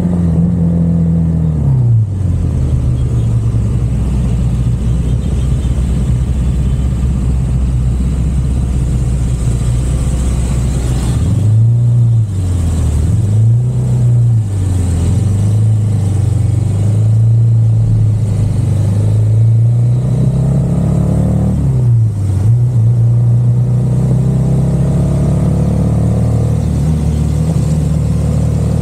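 Car engine running as the vehicle drives, its note rising and falling with speed. It drops about two seconds in, wavers up and down a few times around the middle, climbs, then drops again a little past two-thirds of the way through.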